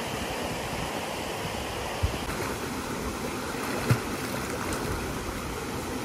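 Mountain stream running over rocks, a steady rush of water, with two brief soft thumps about two and four seconds in.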